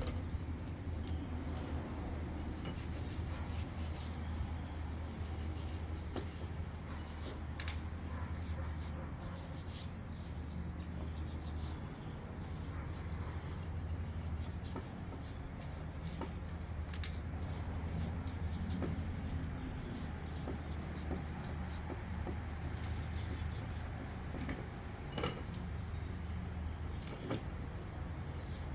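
Rubbing and scrubbing on a bicycle's handlebar controls, the brake levers and gear shifters being cleaned of degreaser, with scattered light clicks and one sharper click near the end, over a steady low hum.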